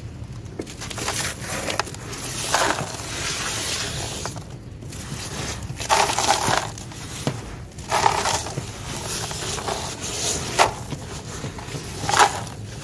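Hand raking and crunching through a tub of dry crumbled sand-cement and grit, giving a series of irregular gritty crunching swishes a second or two apart.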